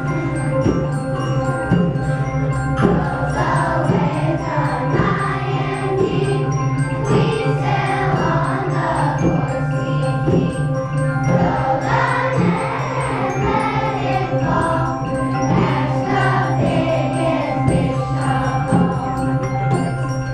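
Children's choir singing with an accompanying school instrumental ensemble: mallet percussion struck in a steady beat, roughly three strikes every two seconds, under sustained held tones.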